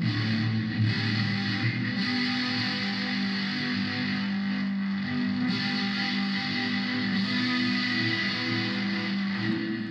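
Electric guitar played through a Korg A5 multi-effects processor set to its plate reverb. Held chords ring out and change every second or two, then fade away at the end.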